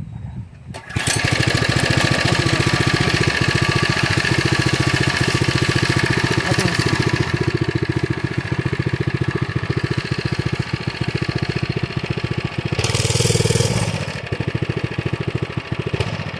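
Mini bike's small gas engine running under throttle while being ridden. It jumps from a low run to a loud, steady run about a second in, with rapid even firing pulses, and rises in revs briefly about three-quarters of the way through.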